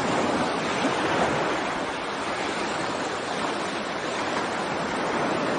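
Ocean waves washing over a rocky shore: a steady rush of surf that swells gently.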